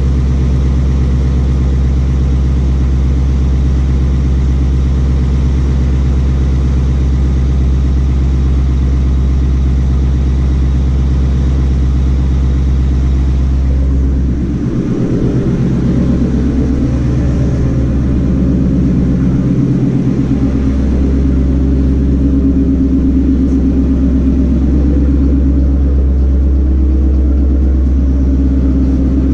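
2018 Mustang GT's 5.0 V8 engine and road noise while driving at speed, a steady low drone. About halfway through the engine note changes and wavers, dipping briefly twice before settling back to a steady run.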